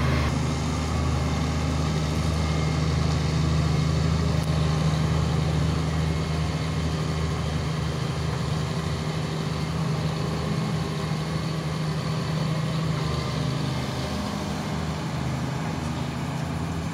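Hitachi Zaxis 350 crawler excavator's diesel engine running steadily, a continuous low hum as the machine works.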